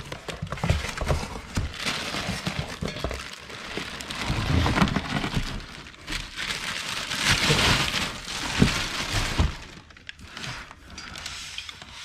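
Rustling and crackling of packaging as air horn kit parts are handled, with scattered knocks. The crackling is loudest in the middle and thins out about ten seconds in.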